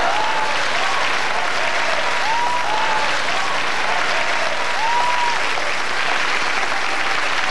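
Large audience applauding steadily after a punchline, with a few short high calls rising above the clapping.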